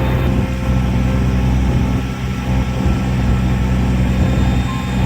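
Amphibious tour boat's engine running steadily with a low hum.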